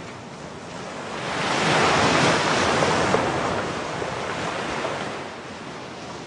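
Sea waves breaking and washing over a pebble beach, swelling to a peak about two seconds in and then easing off.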